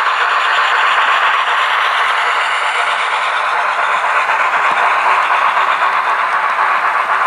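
A string of empty model coal hopper cars rolling past on model railroad track, making a steady, loud rattle of small metal wheels on the rails.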